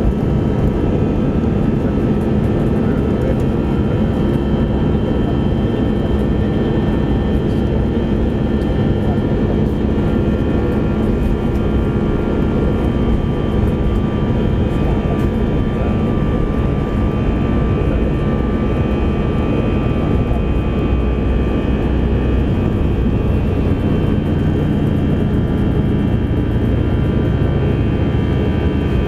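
Airbus A320's twin jet engines at takeoff thrust, heard from inside the cabin during the takeoff roll: a loud, steady noise with a high whine that grows stronger about halfway through.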